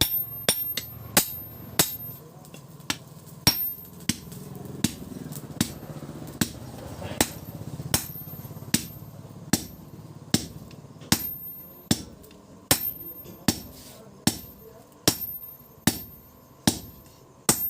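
Hammer blows on steel being forged into a billhook blade: steady, evenly spaced strikes, a little more than one a second, each with a short metallic ring.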